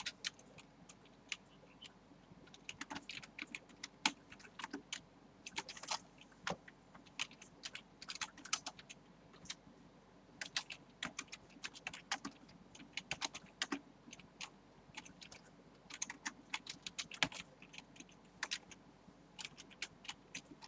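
Typing on a computer keyboard: irregular runs of sharp keystroke clicks with short pauses between them.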